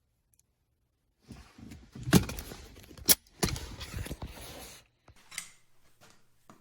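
Handling noise: a few seconds of rustling and clattering with two sharp clicks, then a few fainter clicks.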